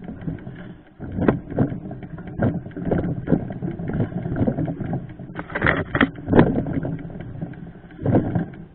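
Mountain bike rattling and knocking as it rolls over rough trail, with irregular jolts over a continuous rumble.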